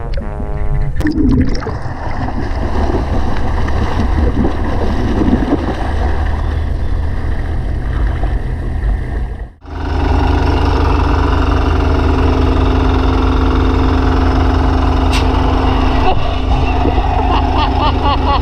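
Underwater bubbling and gurgling, then a steady engine drone from running machinery on a boat deck. Near the end a man exclaims over the drone.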